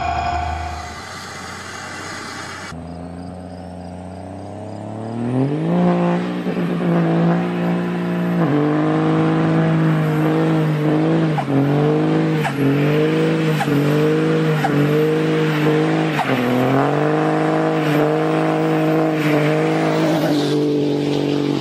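A car engine rising in pitch, then running at a steady high pitch with short dips that recover about once a second.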